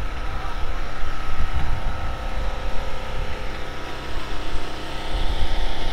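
An engine running steadily, a constant hum with evenly held overtones over a low rumble.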